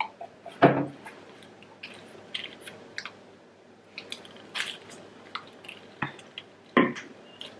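Close-miked eating sounds from chewing spicy prawns: soft wet chewing and small mouth clicks, with two louder short noises, one just under a second in and one near the end.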